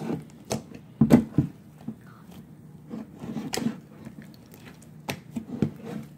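Sticky homemade slime being squeezed and worked in the hands, making irregular wet clicks and squelching pops.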